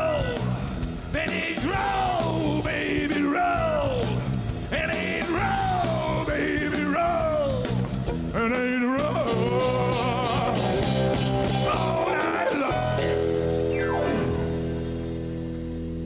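A rock band playing live, with drums, electric guitar, bass and a male lead vocal. About three-quarters of the way through, the song ends on a held chord that rings on and slowly fades.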